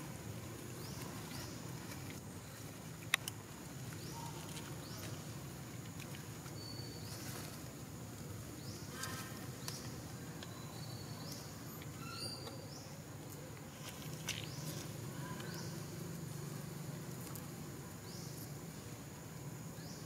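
Forest ambience: short rising chirps every few seconds over a low steady hum, with one sharp click about three seconds in.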